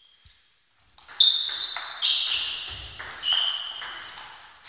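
Table tennis rally: the ball hitting the table and the rackets in quick succession, about six sharp clicks each with a brief high ring, starting about a second in.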